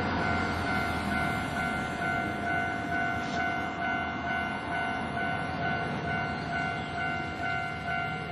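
Japanese level-crossing warning bell ringing its steady electronic "kan-kan" about twice a second, not turned down while the barriers are lowered, over the rumble of a train passing through the crossing.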